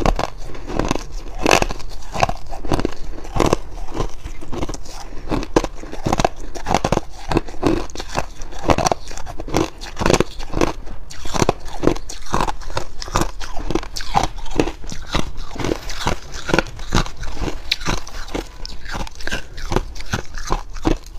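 Shaved ice being bitten and chewed, a close, dense run of crisp crunches coming several times a second without a break.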